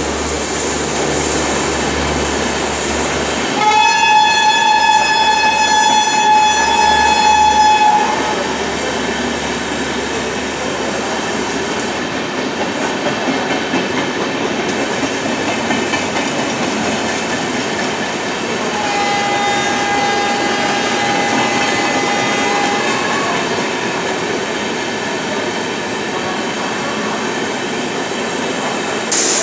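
An Indian Railways passenger train of Humsafar coaches rolling past with a steady rumble of wheels on rail. A train horn blows loudly for about four seconds starting about three and a half seconds in, and again, fainter, for about four seconds around twenty seconds in.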